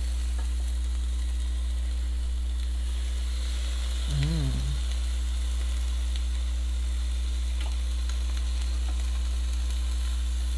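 Bigeye scad fish sizzling on the hot grate of a Ninja smart indoor grill as it is turned with metal tongs, with a few light clicks of the tongs, over the grill's steady low hum. A brief hummed voice sound comes about four seconds in.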